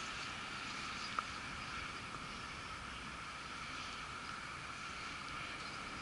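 Steady outdoor background noise: an even hiss with a faint steady hum in it, and one faint click about a second in.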